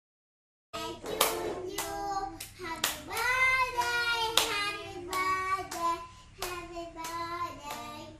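Voices singing a song together with hands clapping in time, about two claps a second, starting about a second in after a short silence.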